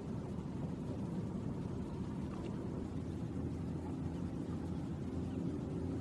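A steady low rumble with no clear beat or break.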